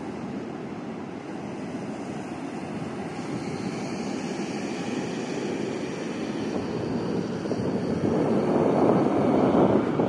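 Pacific surf rushing and breaking on the beach, a steady rush that swells over the last few seconds and falls off sharply at the end.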